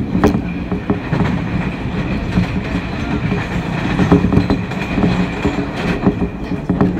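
Seoul Subway Line 1 electric train (set 311x99) running on the line, a steady rumble broken by sharp clicks of the wheels over rail joints, with a faint steady high tone above it.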